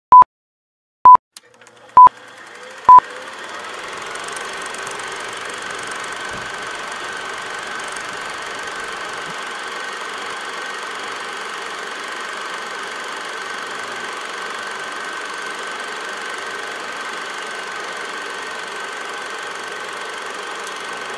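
Film-leader countdown beeps: four short, high beeps about a second apart. Then the steady running sound of an old film projector fades in and holds.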